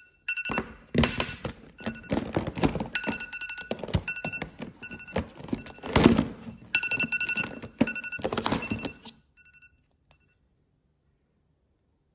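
A phone's electronic ringtone beeping on and off, with many knocks and thuds of things being handled around it. The loudest thud comes about six seconds in, and everything stops about nine seconds in.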